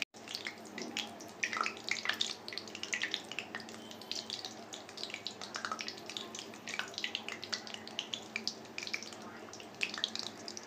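Hot oil in a kadhai sizzling with irregular crackles and pops as paneer patties deep-fry in it.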